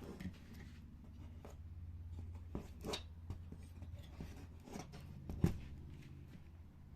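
Scattered small clicks and knocks of hands handling hard parts, the loudest about five and a half seconds in, over a steady low hum.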